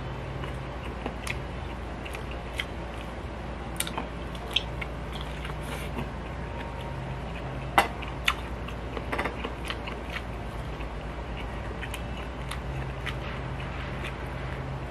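A person eating by hand: chewing, with scattered small clicks and taps of fingers on a ceramic plate, the sharpest about eight seconds in. A steady low hum runs underneath.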